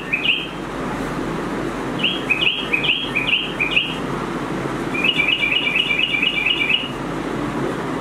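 Recorded bird chirps from a motion-sensor bird-figure pen holder's small speaker. There is a run of about six quick chirps, then a fast trill of about ten notes, over a steady low hum.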